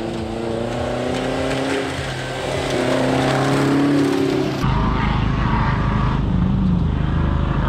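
Off-road rally car's engine revving hard, its pitch climbing and dropping through the gears as it comes closer and louder. About halfway through, the sound cuts abruptly to a heavy, steady low rumble with a fainter engine further off.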